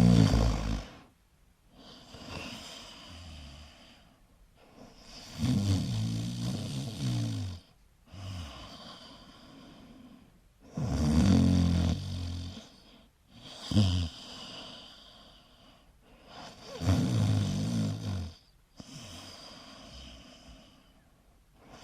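A person snoring in a steady rhythm. A low, rattling snore comes about every five to six seconds, each followed by a softer, breathy exhale and a brief pause.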